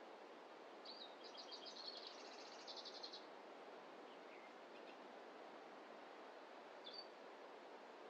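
A small songbird sings a rapid trill of high notes, starting about a second in and lasting about two seconds, followed by a single short high call near the end, over a faint steady background hiss.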